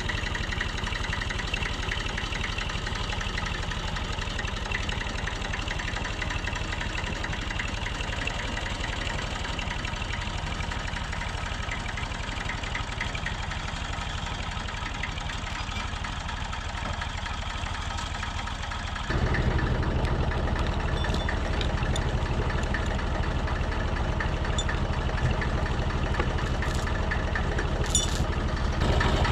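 Excavator's diesel engine running steadily with a fast, even throb. About two-thirds of the way through it becomes louder and deeper.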